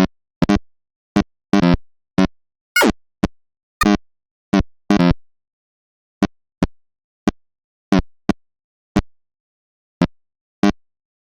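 A string of short synthesized sound blips, each a brief pitched snippet that is cut off abruptly, with dead silence between them. They come quickly at first, then spread out to about one a second after the middle; one near three seconds in slides down in pitch.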